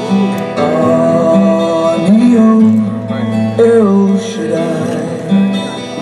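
Recorded music played for dancing: a song with guitar accompaniment and a sung melody.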